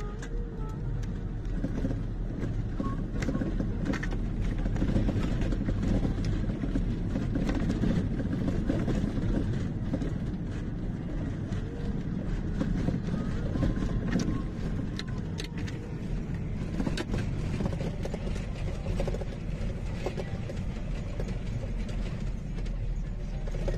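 Steady engine and road noise heard from inside a moving vehicle, with occasional faint clicks and rattles.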